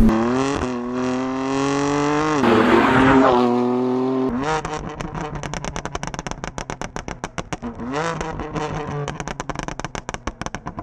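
Tuned BMW M4's twin-turbo straight-six pulling hard through the gears, its revs climbing three times with a shift between each. Then the driver lifts off and the aftermarket valved exhaust gives a rapid, continuous stream of pops and crackles on the overrun, with one brief blip of revs partway through.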